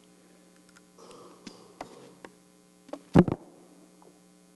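A plastic water bottle handled close to a lapel microphone: faint crinkling and small clicks, then one sharp knock about three seconds in, over a steady electrical hum.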